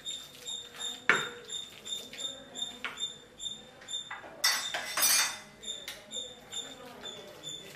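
Wooden utensil knocking and scraping against a steel bowl as boiled tapioca is mashed: irregular clinks, one sharp knock about a second in, and a longer scrape around the middle.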